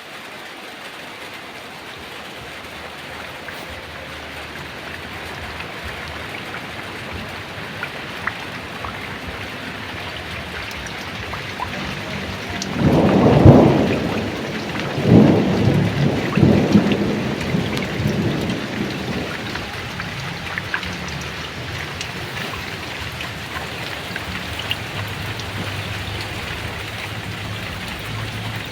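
Heavy rain falling steadily with scattered drop ticks, swelling gradually over the first half. About halfway through, a clap of thunder breaks into a loud low rumble that rolls on in two more waves and dies away over several seconds.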